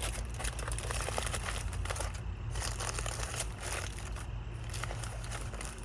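Aluminium foil crinkling and crackling in irregular handfuls as it is folded up around food into a cooking packet.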